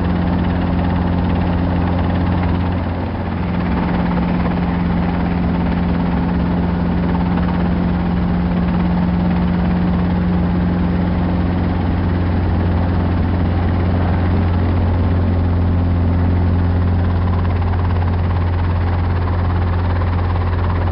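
Robinson R22 helicopter's piston engine and rotors running steadily while it hover-taxis, heard from inside the cabin as a loud, even low drone. The level dips slightly about three seconds in.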